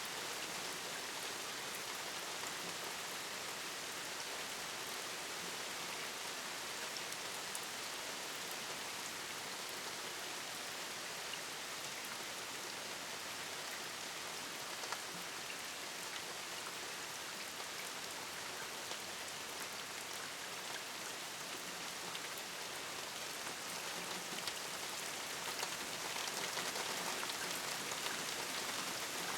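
Steady rain falling, an even hiss made up of many small drop ticks. It gets slightly heavier near the end.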